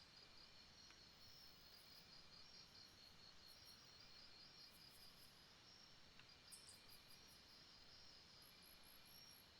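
Faint night-time jungle ambience: insects chirping in steady, pulsed high-pitched trains, with fainter, even higher chirps coming and going over a soft hiss.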